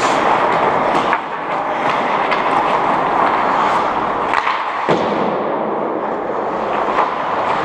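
Ice hockey rink noise: a steady scraping hiss of skates on ice with scattered sharp clicks of sticks and puck.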